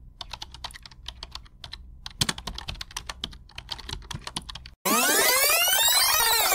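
Rapid, irregular keyboard typing clicks for the first four and a half seconds or so. Then a much louder many-toned sweep begins, rising and then falling in pitch.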